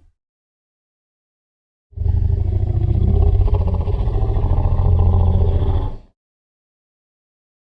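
After about two seconds of silence, a loud, low, steady rumble with a fast fluttering texture sounds for about four seconds, then stops abruptly.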